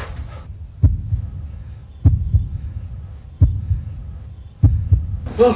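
Heartbeat sound effect: a deep double thud, lub-dub, about every 1.2 seconds over a low rumbling hum. Near the end a voice cries out.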